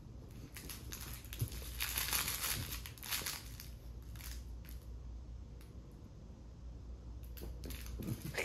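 Scratchy rustling of a plush dog toy being jiggled and jerked in the air while a puppy jumps at it on a bed. The rustling comes in spells, thickest in the first three seconds and again near the end.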